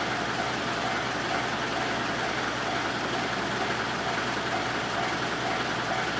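Railway level-crossing warning bell ringing in a quick, even repeat, over a steady rumble of rail traffic.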